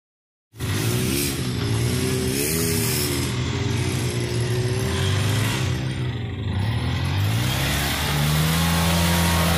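Off-road vehicle engine running while being driven, its pitch wavering with the throttle and rising near the end. It starts abruptly about half a second in.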